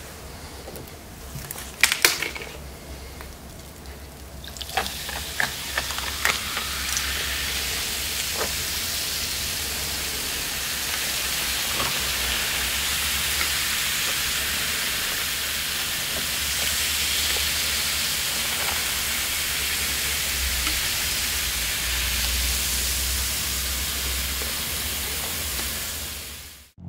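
Coca-Cola poured from a bottle over ice in foam cups: a few sharp clicks and cracks of ice at first, then a steady fizzing hiss of carbonation as the soda foams over the ice.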